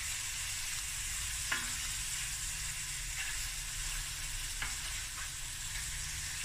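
Haddock fillets and mixed vegetables sizzling in a stainless steel frying pan. A wooden spoon stirs them and knocks against the pan a few times, most sharply about a second and a half in.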